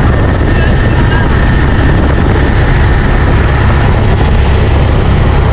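Steady, loud helicopter noise from inside the cabin: a constant low engine and rotor rumble with a faint high whine above it.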